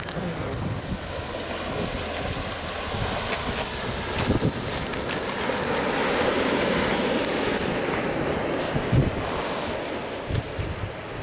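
Surf washing onto a pebble beach, swelling and easing, with wind buffeting the microphone.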